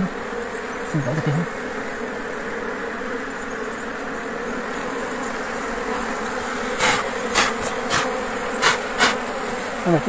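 A swarm of honeybees buzzing steadily around their opened wild nest. Near the end there are a few sharp knocks.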